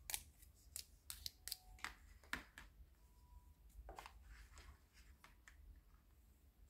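Faint clicks and taps of pink plastic toy cutlery being handled and set down on a table, a quick run of sharp clicks in the first few seconds that thins out toward the end.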